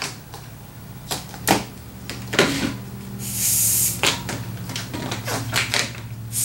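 A latex 260 twisting balloon being handled, with scattered rubbery squeaks and clicks. About three seconds in comes a hiss, a bit under a second long, as air is let out through the nozzle to leave the balloon soft before tying.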